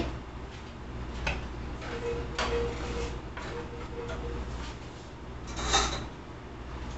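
Wooden spoon stirring sliced almonds as they toast in a skillet: light scraping and a few scattered taps, with one louder scrape near the end.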